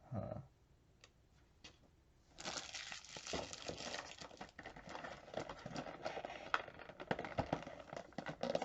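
A short dull sound right at the start. From about two and a half seconds in comes continuous crinkling of plastic packaging, full of small crackles, as an item is unwrapped.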